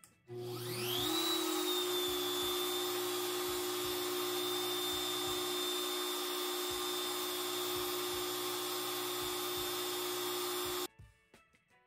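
Genmitsu 710W trim router running free as a CNC spindle at speed setting 4: switched on, it spins up with a rising whine over about a second, then runs steadily at high speed with a high whine, and stops abruptly near the end.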